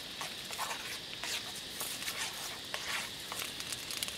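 Scrambled eggs with onion sizzling in a frying pan over a campfire, with irregular short scrapes and clicks as a utensil stirs them against the pan.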